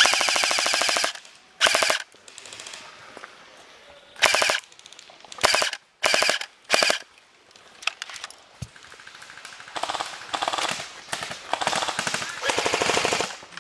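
Airsoft Sten gun replica firing on full auto: six short bursts of rapid, evenly spaced shots over the first seven seconds, the first about a second long, then a quieter, longer stretch of fire near the end.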